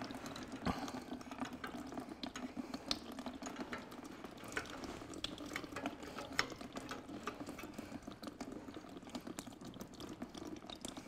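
Small metallic clicks and taps of an open-ended spanner working a fuel-line union under an old stationary engine's carburettor, over a faint trickle of liquid.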